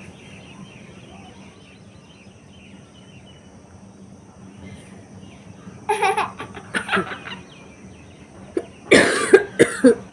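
A person sneezing loudly near the end, set off by a long grass stalk tickled inside the nose. It follows a few seconds of quiet and then several short laugh-like vocal bursts about six seconds in.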